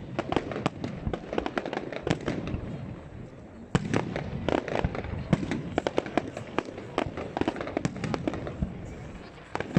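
Fireworks display: a rapid, irregular string of bangs and crackling pops that grows louder a little under four seconds in.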